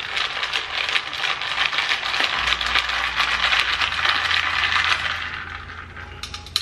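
A long metal stirrer clinking rapidly against the inside of a glass mason jar as a drink is stirred, a quick continuous rattle that eases off near the end.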